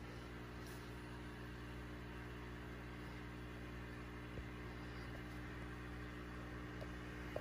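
Steady hum of an aquarium air pump under a steady hiss of bubbles rising from the airstones, with a couple of faint ticks.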